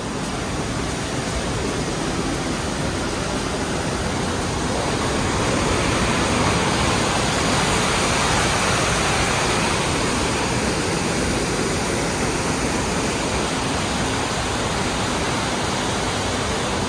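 Steady rush of water pouring out through the dam's gates, an even hiss that grows a little louder about six seconds in and eases again later.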